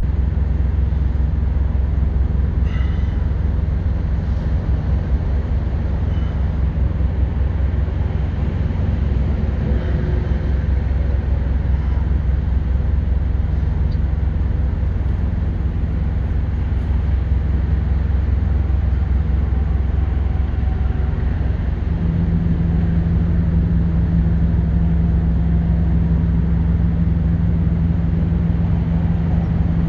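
Steady low rumble of idling diesel truck engines, with a deeper hum that gets stronger about two-thirds of the way through.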